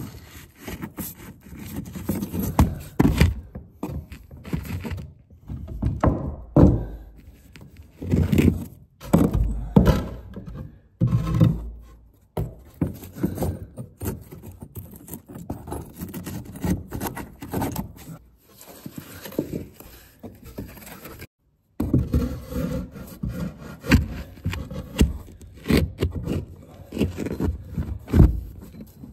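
Bricks and wet mortar being worked into a narrow gap under floorboards by hand: irregular scraping and rubbing of mortar, with scattered knocks of brick against brick and timber.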